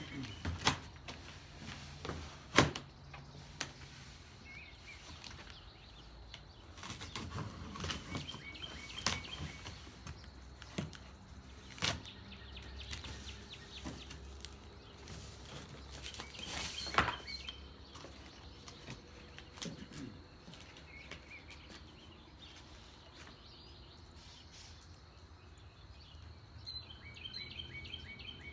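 Cardboard shipping boxes being opened and handled: scattered knocks, scrapes and rustles of flaps and packing, with a few sharp knocks standing out. Birds chirp now and then in the background.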